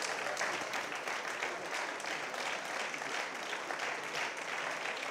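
A congregation applauding: many hands clapping at a steady level.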